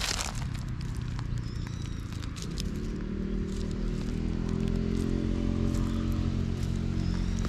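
A cat purring steadily close up while its head and chin are scratched, louder from about two and a half seconds in. Dry leaves crackle with a few sharp clicks in the first half.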